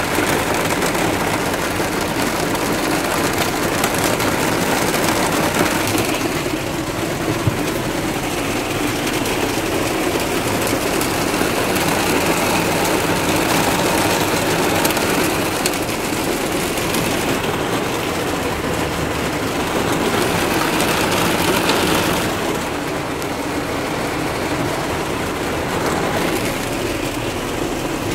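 Heavy rain falling on a car's roof and windshield, heard from inside the car as a steady, dense hiss and rumble.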